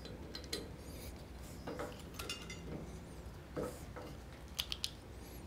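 Scattered light metal clinks and clicks of hand tools and fittings as an accessory is changed on a 1954 Shopsmith Mark V, with a few quick clicks close together near the end.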